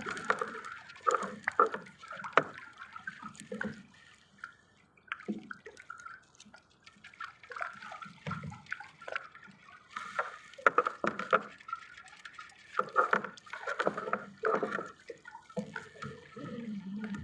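Water splashing and sloshing in irregular bursts, with a quieter stretch around four to six seconds in.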